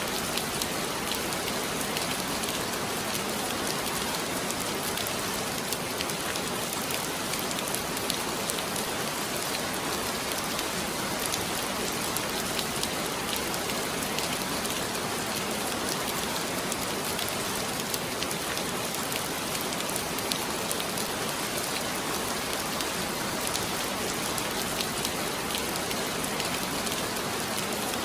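Heavy rain falling steadily: a dense, even hiss dotted with countless small drop ticks.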